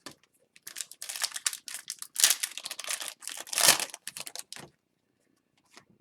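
Hockey trading cards and their foil pack wrapper being handled, crinkling and rustling from just under a second in until nearly five seconds in, loudest in two spells in the middle.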